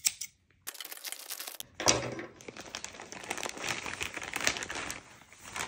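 Scissors slicing through a thin clear plastic bag about a second in. From about two seconds in, the bag crinkles and rustles as it is pulled open and off a fabric-covered case.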